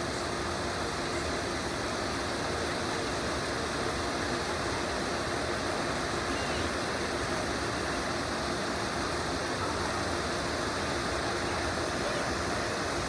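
Steady rush of running water with a faint steady hum under it.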